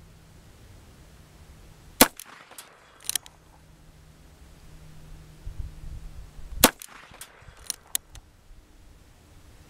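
Ruger Single Six .22 LR revolver firing at long range: a sharp shot about two seconds in and another near seven seconds, each followed about a second later by fainter sharp cracks.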